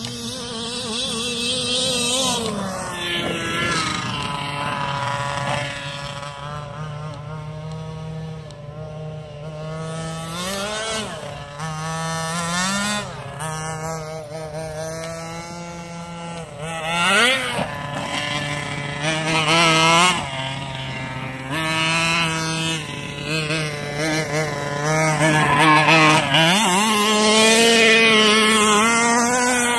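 Two-stroke petrol engine of a 1/5-scale Rovan Losi 5ive-T-style RC truck, dropping back to idle between repeated bursts of throttle that send its pitch up and down, with a longer stretch held at high revs near the end.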